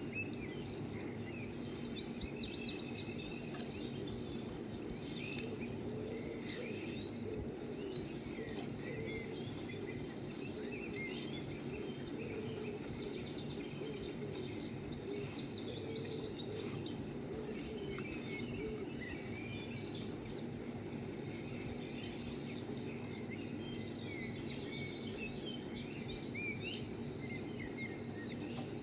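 Birds chirping and twittering, many short high calls over a steady low murmur.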